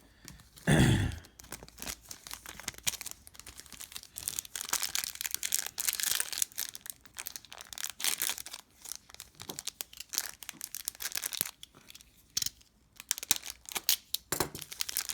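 A trading-card pack's foil wrapper being torn open and crinkled by hand: irregular tearing and crackling for most of the stretch, with a short loud burst about a second in.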